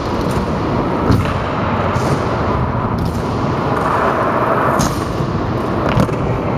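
Stunt scooter wheels rolling on a concrete skatepark floor with a steady rumble, crossed by a few sharp knocks of the scooter striking the ground, the last about six seconds in as the rider bails and the scooter drops.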